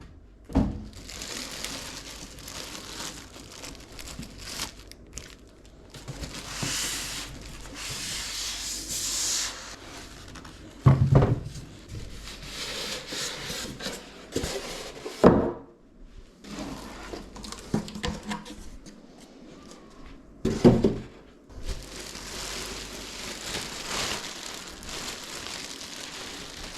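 Packaging crinkling and rustling as PC parts are unpacked and handled, in three longer stretches, with four short thunks of items being set down or knocked, the sharpest about 11 and 15 seconds in.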